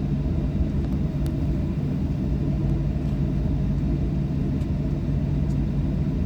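Steady low rumble inside the cabin of a Boeing 737-800 airliner, engine and airflow noise with a constant low hum, and a few faint ticks.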